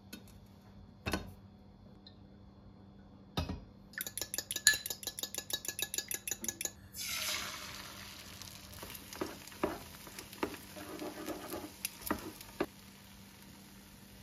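Two knocks, then a fork beating egg in a small glass bowl with rapid clicks, about seven strokes a second. About seven seconds in, beaten egg is poured into a hot frying pan and starts sizzling, with light taps now and then.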